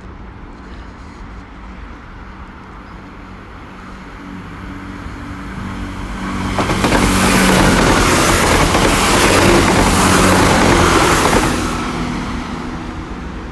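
A two-unit Class 165/166 Turbo diesel multiple unit passing close by. The diesel engine hum builds as it approaches, then a loud rush of wheels and air lasts about five seconds as the train goes past, and the sound fades near the end.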